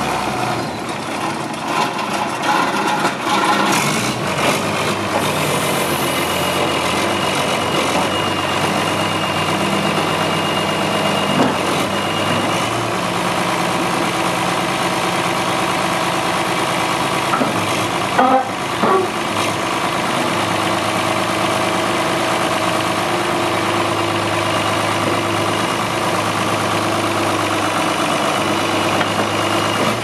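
Case 850G crawler dozer's diesel engine running steadily, its note shifting at times as the blade is raised and angled. A few short knocks come a little past halfway.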